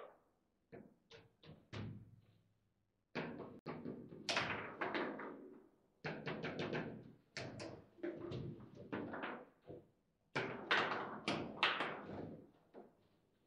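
Table football (foosball) match in play: the ball knocking against the plastic figures and table walls, with rods clacking. There are a few separate knocks at first, then rapid, dense clatter from about three seconds in, with brief lulls.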